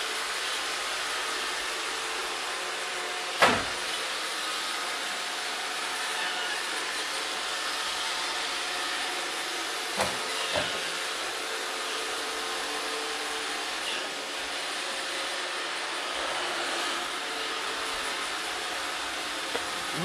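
iRobot Roomba 565 robot vacuum running over a wooden parquet floor: a steady whir of its vacuum motor and brushes, with a few thin steady whining tones. A sharp knock comes about three and a half seconds in, and two lighter ones around ten seconds, as its bumper hits the cabinet base.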